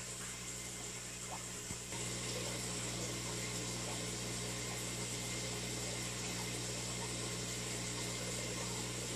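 Aquarium filter pump running, a steady hum under the sound of moving water, a little louder from about two seconds in.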